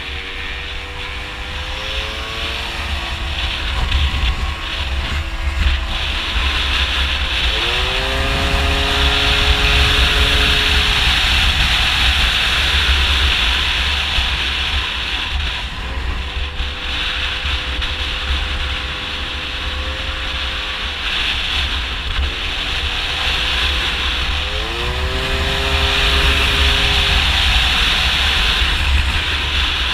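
Two-stroke Gilera Runner scooter engine with a 172 cc Malossi big-bore kit, pulling hard: the revs jump up sharply a few times and hold at a steady high pitch in between as the scooter gathers speed. Heavy wind buffeting on the microphone underneath.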